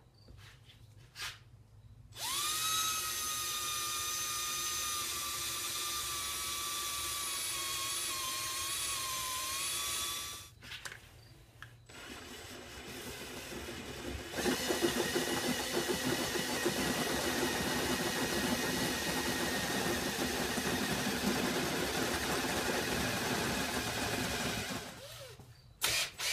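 Cordless drill boring into the steel of a railroad spike in two runs. First comes a steady motor whine for about eight seconds. After a short pause, a second, louder run with more grinding noise lasts about ten seconds as the bit cuts.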